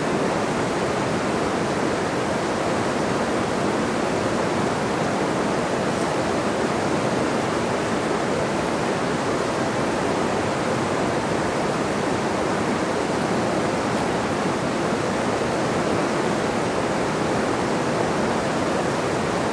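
Steady rush of a fast, high-gradient mountain river running over rapids and a riffle.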